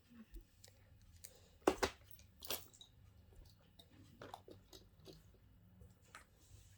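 A fidget toy being handled and played with: scattered small clicks and crunchy crackles, the two loudest about two seconds and two and a half seconds in.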